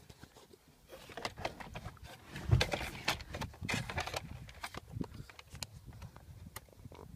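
Irregular plastic clicks, knocks and rustling from car dashboard wiring connectors and trim being handled, busiest in the middle with one louder knock.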